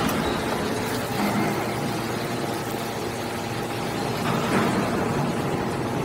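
Y81-250 hydraulic scrap metal baler running, its hydraulic power pack giving a steady drone as the ram pushes a compressed bale of metal turnings out of the chamber, with a couple of louder swells.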